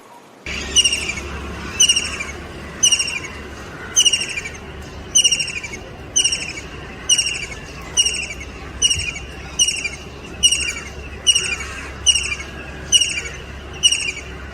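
A kingfisher calling: a steady series of brief, downward-sliding trilled notes, about one every 0.8 seconds, starting about half a second in. A low steady rumble runs underneath.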